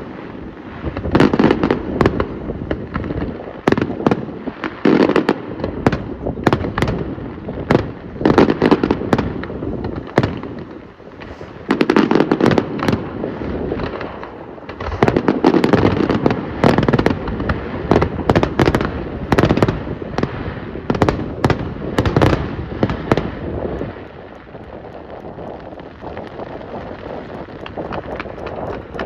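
Aerial fireworks display going off: shells bursting in rapid waves of sharp bangs over a low booming rumble. About five seconds before the end it eases off to a quieter, steadier rumble.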